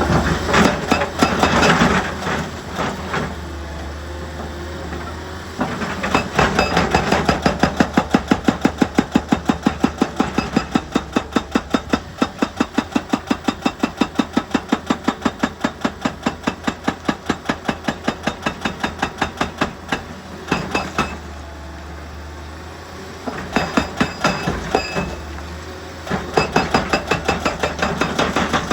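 Excavator working rock with rapid, evenly spaced hammering blows, about five a second, over the steady hum of its diesel engine. A few irregular clanks come first, and the blows break off for a couple of seconds near the end before starting again.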